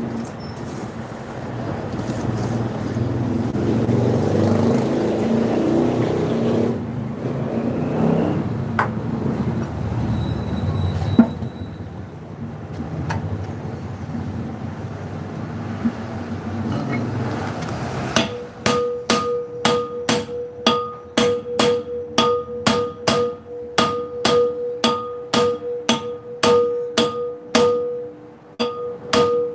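Repeated hammer blows on a truck's steel brake drum, about two to three a second with a ringing metallic note, starting about two-thirds of the way in. They are knocking loose a drum that is stuck tight on the hub. Before them there is a steady low rumble of background noise.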